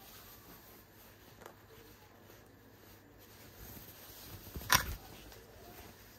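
Soft rustling of a fabric garment being lifted and shaken out, with one sharp knock a little under five seconds in.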